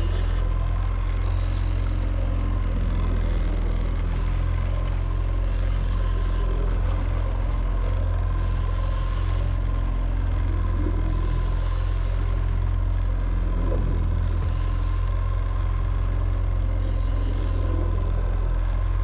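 Boat motor running steadily, a constant low drone, while a fish is being fought on the rod. A short hissing sound comes about every three seconds over it.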